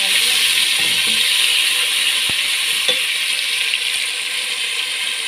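Onions and tomatoes frying in hot oil in a pot, a steady sizzle, with a couple of light knocks about two and three seconds in.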